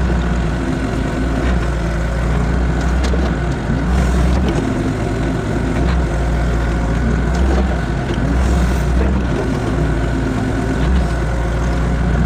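Excavator's diesel engine running steadily, a deep low rumble that swells and eases every second or two as the machine works.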